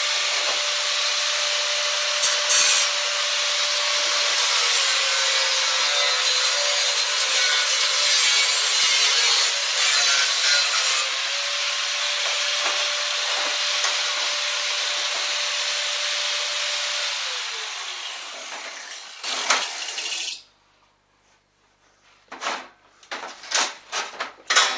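Electric angle grinder cutting the sheet metal of a computer case, running steadily with its pitch dipping a little under load. About seventeen seconds in it is switched off and spins down, then after a short burst come a few sharp metal clanks as the cut sheet metal is handled.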